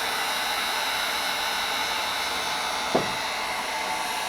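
Wagner electric heat gun blowing steadily on its low setting, shrinking heat-shrink tubing over a crimped battery-cable ring terminal. A single light knock comes about three seconds in.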